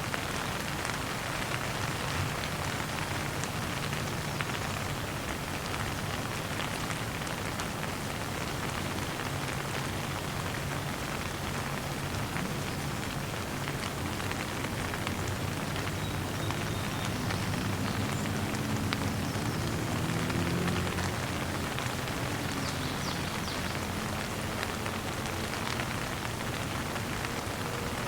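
Light rain falling, a steady patter of many small drops. A faint low drone underneath swells a little about two-thirds of the way through.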